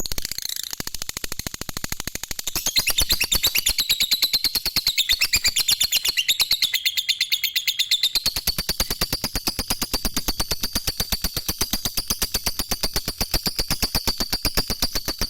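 Lovebird's 'ngekek': one long unbroken chattering trill of very rapid high notes, dipping a little lower in pitch in the middle and climbing back.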